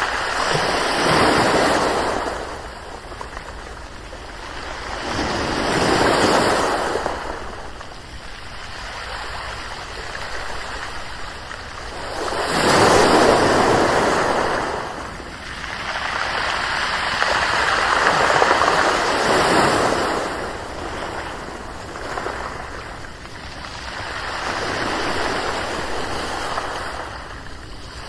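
Ocean waves breaking on a shore, the surf swelling and falling back in a slow, uneven rhythm, one wash every five to seven seconds.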